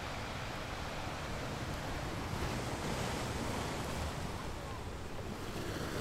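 Steady underwater hiss and low rumble picked up by a camera in an underwater housing, among scuba divers breathing out streams of bubbles.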